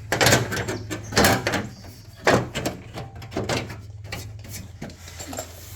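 Sheet-metal knocks and clatter as a steel hood patch panel is handled and set against a car hood, with the strongest knocks near the start and about two seconds in, over a steady low hum.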